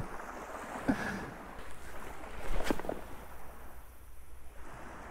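Gentle wash of calm, ankle-deep sea water, with two brief louder sounds, about a second in and a little past halfway.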